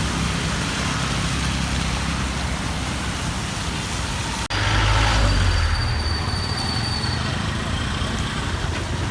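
Vehicles driving along a waterlogged highway: steady road-traffic noise with a hiss. After a sudden break about halfway through, a louder low rumble follows with a faint high whine, as a heavier vehicle passes.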